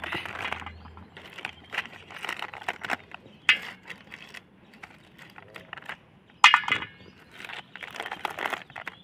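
Crisp sun-dried sandige wafers crackling and clicking as they are peeled off a plastic drying sheet and gathered by hand, with the sheet crinkling. Sharper snaps come about three and a half seconds in and again near six and a half seconds.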